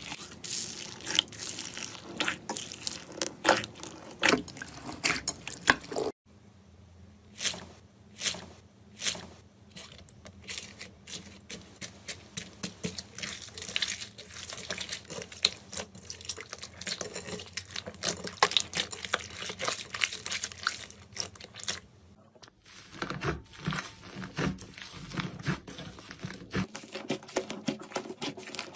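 Slime being squeezed, stretched and poked by hand, giving a dense run of irregular wet clicks, pops and sticky crackles. The sound changes character twice, about six seconds in and again near the end of the third quarter, as one slime gives way to another.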